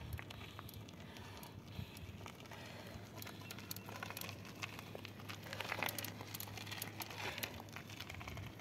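Faint crunching and crackling of mountain-bike tyres rolling over loose gravel as riders pass close, heaviest about six seconds in.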